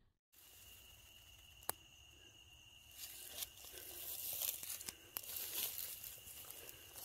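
Footsteps and legs brushing through tall grass and brush, a crinkling, crunching rustle that grows louder from about three seconds in. A single sharp click comes before it, and a steady high tone runs in the background.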